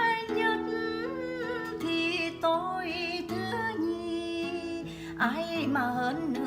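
Background music: a Vietnamese song, with a singing voice over held instrumental chords.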